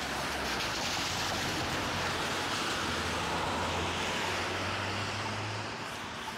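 Motor vehicle passing on a wet, slushy road: tyre hiss swells and fades over a few seconds, over a low engine drone that stops about five and a half seconds in.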